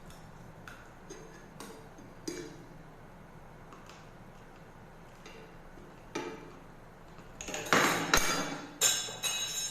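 Light clinks and taps of dishes and utensils during a meal, a few scattered at first, then a louder flurry of clatter near the end.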